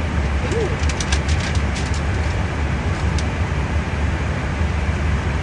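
Steady low rumble and rush of an airliner in flight, heard from inside the cockpit. A few faint clicks come in about a second in.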